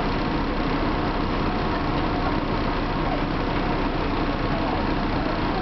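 Steady hum and noise inside a stopped Tosa Electric Railway streetcar, with road traffic crossing in front of it.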